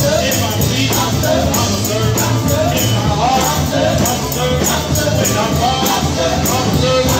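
Live gospel praise music with a tambourine shaking a steady, fast beat and voices singing over it.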